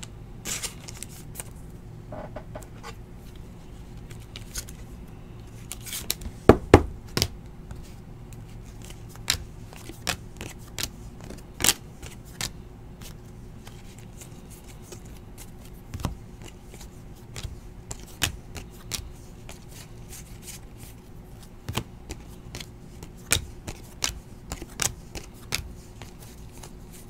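Trading cards being handled and flipped one by one, making irregular light snaps and clicks of card stock sliding off card stock, with a louder cluster of snaps about six to seven seconds in. A faint steady hum runs underneath.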